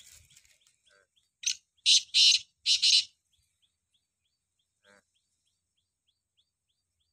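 Black francolin calling: four loud, harsh, grating notes starting about a second and a half in, the later ones longest. Under it runs a faint, steady series of small bird chirps, about three a second.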